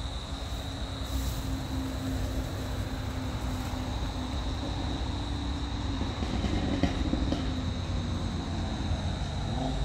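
Steady low rumble of road traffic from a nearby main road, with a constant high-pitched insect drone running over it.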